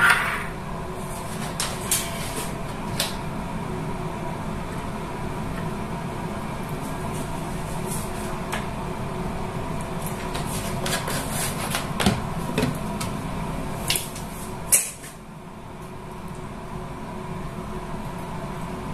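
Steady mechanical hum with a few held tones, with scattered clicks and knocks. The loudest is a sharp knock about fifteen seconds in, after which the hum dips and slowly builds back.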